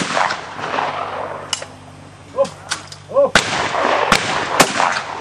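A shotgun shot right at the start, its report echoing away over the next seconds. Several more sharp shots follow, about a second and a half, three and a half, four and four and a half seconds in.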